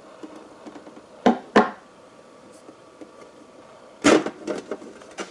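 Lid of a white cable management box being handled and opened: two sharp clicks close together, then a louder knock followed by a few light taps about four seconds in.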